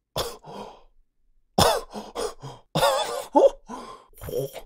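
A man laughing in a string of short bursts, some with a shaking, wavering pitch.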